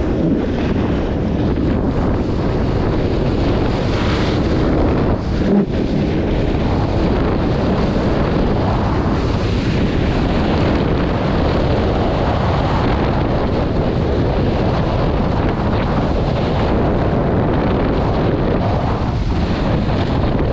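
Wind buffeting the microphone, a loud, steady rush of noise, as from a camera carried at speed down a ski run.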